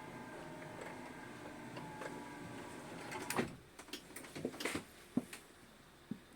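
A steady low hum, then a quick run of clicks and knocks about halfway through, like a cupboard door or drawer in a motorhome being opened and shut, with two more light knocks near the end.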